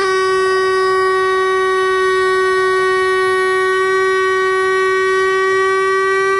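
Air scribe running with a steady high whine, one held pitch with many overtones, as it works the rock matrix around a fossil tooth.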